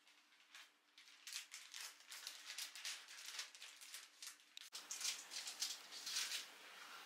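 Calico cat grooming itself, licking its paw and fur in a quick run of soft licks, several a second.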